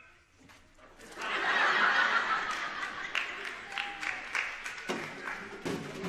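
Audience laughing, swelling up about a second in and carrying on, with a few sharp knocks and taps among it.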